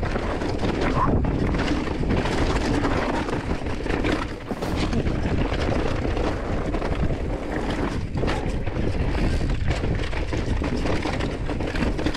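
Orbea Wild full-suspension mountain bike rolling fast down a loose, rocky trail: a constant rumble of tyres over stones with many small knocks and rattles, mixed with wind noise on the microphone.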